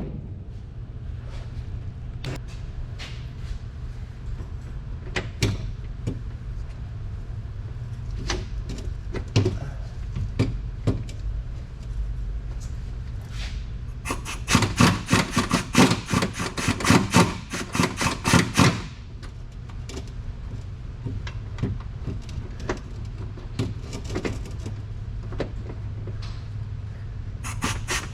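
Socket ratchet working a bolt: scattered clinks of tools and the extension being fitted, then about halfway through a few seconds of fast, even ratcheting strokes, starting again near the end. A steady low hum runs underneath.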